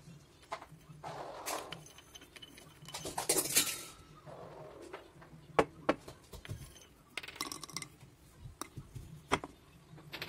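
Roasted peanuts and almonds rattling against a ceramic bowl as they are scooped out and clattering into a wooden mortar, in short spells of rattling with a few sharp single knocks.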